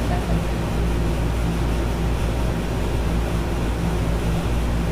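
Steady low electrical hum with a faint hiss over it.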